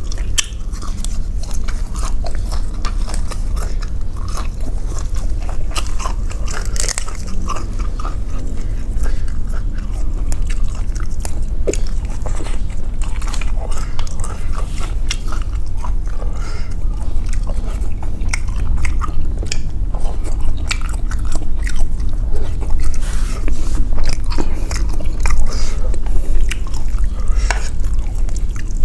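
Close-miked eating of a bowl of pork noodle soup with pork balls: continuous chewing and biting, with many quick wet clicks and mouth smacks. A steady low hum runs underneath.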